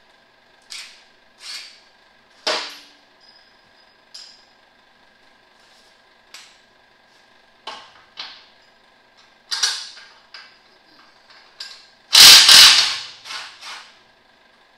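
Hand tools and metal parts clinking and knocking while the air filter is taken off a truck engine: a string of separate sharp clicks and clanks, with one louder, longer clatter about twelve seconds in.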